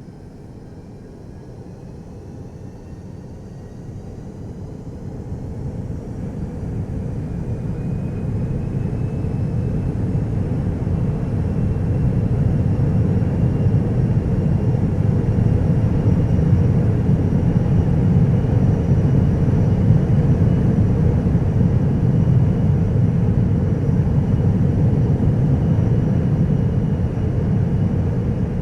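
Jet engine spooling up: a high whine rises slowly in pitch as the deep roar swells over about twelve seconds, then both hold steady at high power.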